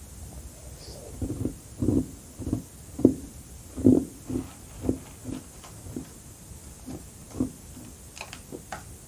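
Chewing carbonated crushed ice: a run of crunches about two a second, loudest in the middle and tapering off, with a few sharper clicks near the end.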